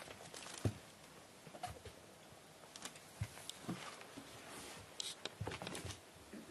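Scattered light scratches, rustles and soft knocks from a kitten squirming and moving about, with no meows.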